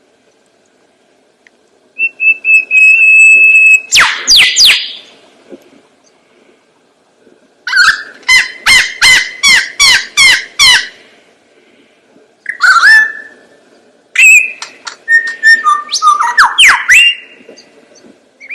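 Lyrebird singing in loud whistled phrases with pauses between them: a held whistle, sharp downward-sweeping notes, then a fast run of about ten repeated falling notes, and a jumble of mixed calls near the end.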